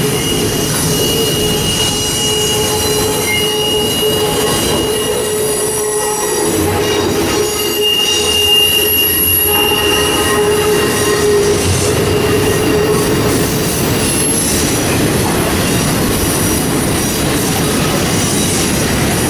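Double-stack intermodal well cars rolling past, a steady rumble of wheels on rail with high, drawn-out wheel squeal that comes and goes.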